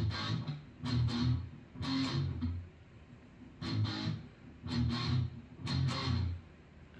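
Electric guitar, a Gibson Les Paul Studio, played in low chugging strokes about once a second, with a short break midway, imitating the chunk-chunk of a steam locomotive pulling away.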